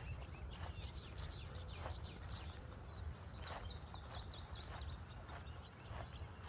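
Footsteps on a hiking trail at a steady walking pace, a step about every 0.6 seconds, over a low rumble. Around the middle a songbird sings a quick run of high chirps.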